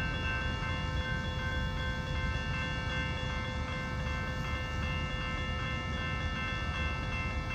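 A train, heard but not seen: a steady chord of several high tones held without a break over a low rumble.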